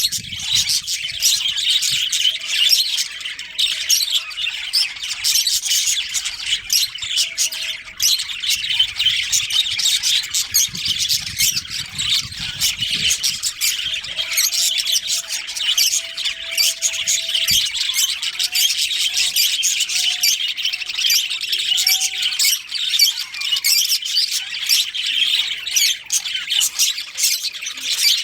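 A colony of budgerigars chattering and chirping, many birds calling over one another in a dense, unbroken flock chatter.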